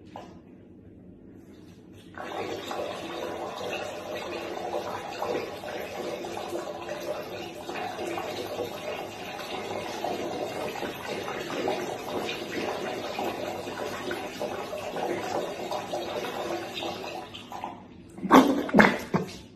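A thin stream of liquid poured from a pitcher held high, falling into a large mug with a steady splashing for about fifteen seconds before it stops. A couple of short loud bursts follow near the end.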